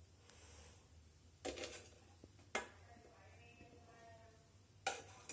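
A steel ladle clinking against a steel kadhai as it scoops sweets out of sugar syrup: four short metallic clinks, two close together early, one more shortly after and one near the end.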